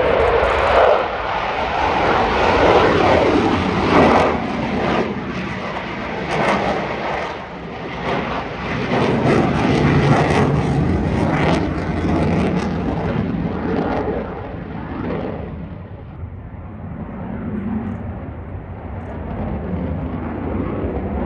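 Engine noise of display aircraft flying past, swelling and sweeping in pitch, then fading about two-thirds of the way through.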